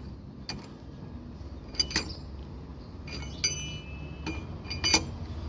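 Steel spanner clinking and tapping against a wheel nut as it is fitted and worked loose: about six sharp metallic clicks with a brief ring, two close together near the middle.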